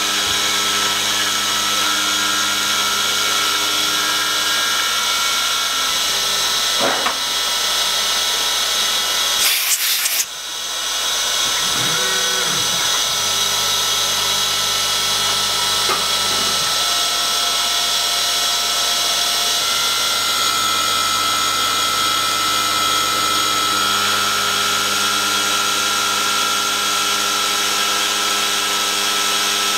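CNC milling machine spindle running a 2 mm carbide end mill at about 6,000 rpm, cutting a profile, as a steady machine whine. About ten seconds in there is a brief sharp burst, followed by a short dip in level.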